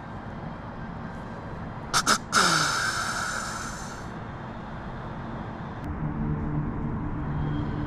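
A whitetail buck snort-wheeze made by a hunter calling: two quick sharp snorts about two seconds in, then a long hissing wheeze that fades out over a second and a half. Near the end comes a lower, steadier droning sound, about two seconds long with short breaks.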